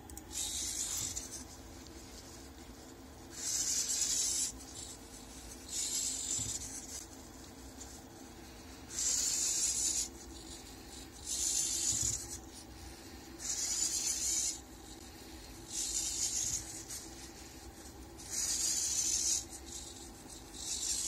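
Marker tip scratching across paper as a robot arm writes letters: about nine separate strokes, each roughly a second long, coming one every couple of seconds, over a steady low hum.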